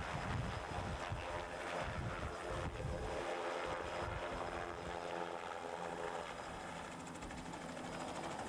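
Light helicopter taking off and flying away: low rotor thumping in the first few seconds, then a steadier engine drone that slowly grows fainter as it departs.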